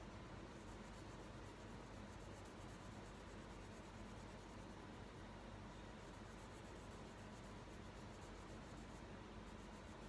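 Crayon rubbing on paper in quick, faint colouring strokes.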